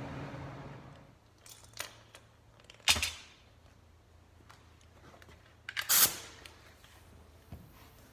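A few sharp clicks and knocks of tools being handled, the two loudest about three and six seconds in. A low hum fades out within the first second.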